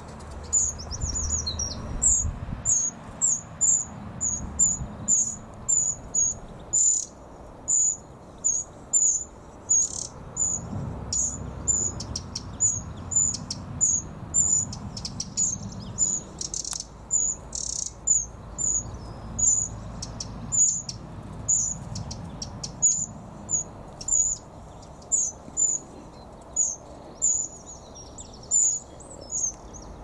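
Wren calling: a short, thin, high-pitched call repeated steadily, about three calls every two seconds.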